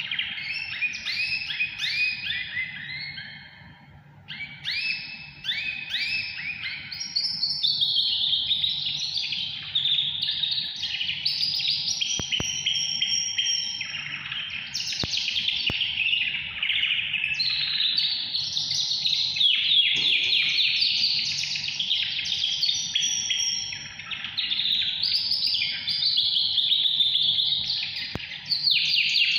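Caged canary singing continuously: fast, high-pitched trills and runs of rapid repeated chirps, with a short lull about four seconds in.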